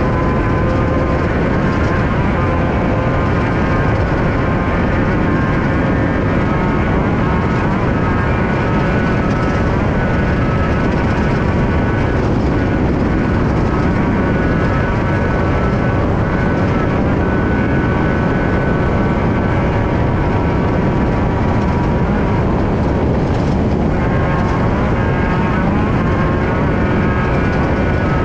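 Air-cooled 1600 cc VW flat-four of a Class 5/1600 Baja Bug race car running hard, its pitch rising and falling repeatedly with throttle and shifts, over a heavy steady rumble. Heard from inside the car.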